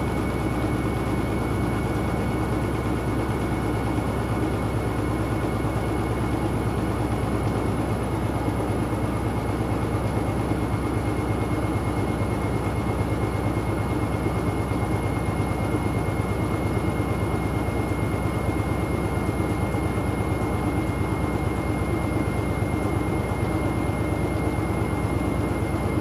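Hoover front-loading washing machine drum spinning steadily in an oversudsed load, its motor giving a constant high whine over a low hum.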